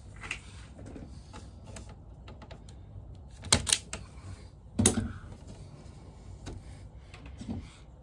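Sharp clicks from a hand wire-stripping tool and the handling of twin-and-earth cable cores: two or three clicks about three and a half seconds in and another about a second later, with faint rustling and small ticks between.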